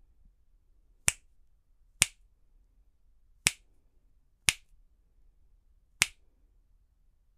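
Five sharp finger snaps at uneven intervals, close to a microphone in a furry windshield.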